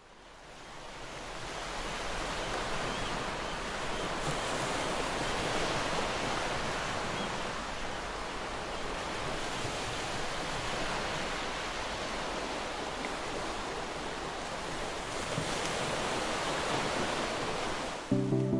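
Ocean surf and wind: a steady rushing that fades in over the first two seconds. Music comes in near the end.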